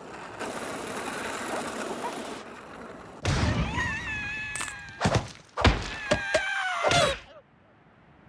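Cartoon slapstick sound effects: a rushing, hissing noise, then a heavy thud about three seconds in, followed by a run of sharp knocks mixed with squeaky gliding whistle tones that stop suddenly near the end.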